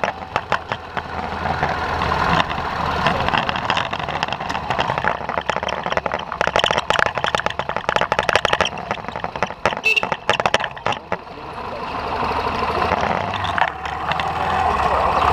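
Motorcycle engine running as the bike rides slowly, with a steady low hum.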